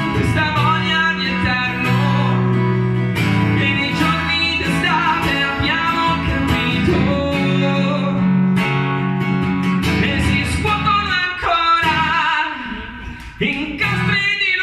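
Live acoustic guitar strummed in chords under a man's singing voice. Near the end the guitar drops back for a moment before the strumming picks up again.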